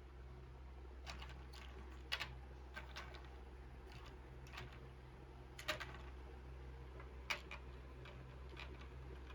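Plastic toy building bricks being handled: scattered light clicks and taps at uneven intervals, over a faint steady low hum.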